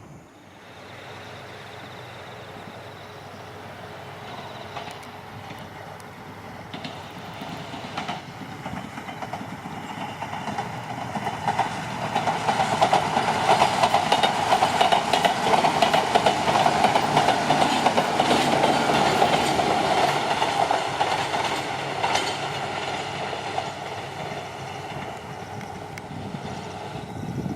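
Enshu Railway 2000-series electric train (set 2007) running past on the line: the rolling noise builds, is loudest through the middle, then fades as it moves away.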